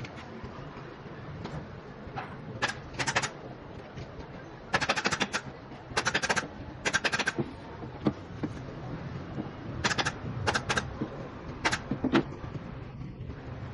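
Pneumatic upholstery staple gun firing in quick clusters of rapid shots, a series of bursts over a steady low hum.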